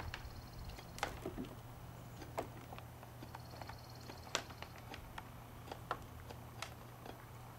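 About half a dozen scattered sharp clicks and knocks from trimming a Fjord horse's front hoof propped on a hoof stand, over a steady low hum.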